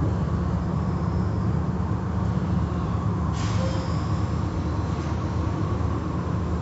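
Automatic car wash heard from inside the car's cabin: a steady low rumble of the wash machinery with water and soap spraying over the windshield. A brief higher swish comes a little over three seconds in.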